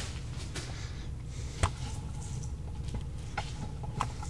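Steady low hum with a few sharp clicks of camera handling, the loudest about a second and a half in.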